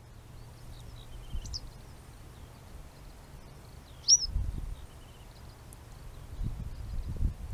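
Meadow birds calling, northern lapwings among them: scattered short, faint chirps and one loud call that rises and falls about four seconds in. Low thumps come and go underneath, around the middle and near the end.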